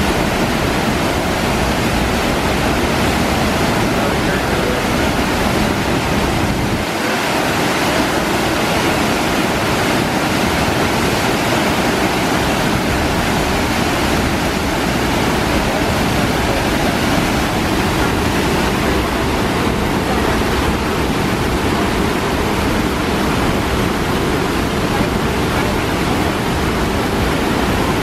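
Fast white water of a mountain stream pouring over rocks at the base of a waterfall: a loud, steady rushing.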